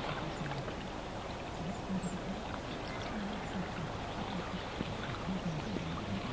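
Steady distant traffic noise, with the muffled, low burble of a talk radio voice underneath and a few faint high bird chirps.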